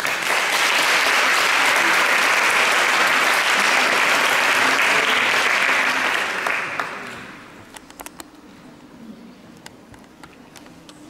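Audience applauding: dense clapping for about six seconds that then dies away, leaving a quiet hall with a few scattered clicks.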